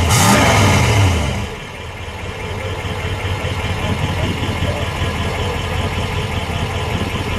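1965 Plymouth Barracuda's 273 cubic-inch Commando V8, heard at the tailpipe of its single header-style exhaust, finishing a blip of the throttle with its pitch rising and falling. It settles back to a steady idle about a second and a half in.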